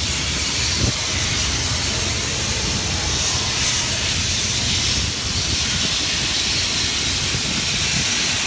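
Steady low rumble and hiss of wind and water on a fishing boat offshore.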